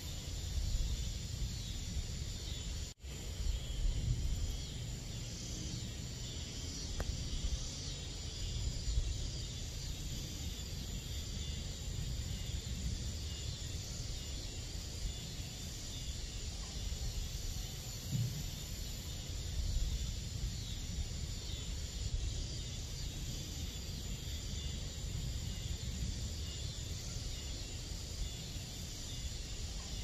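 Evening chorus of crickets and other insects: a steady high-pitched trilling over a low rumble. The sound cuts out for an instant about three seconds in.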